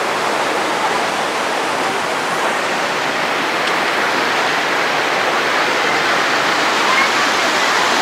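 Mountain river rushing through boulder rapids: a steady, loud rush of white water.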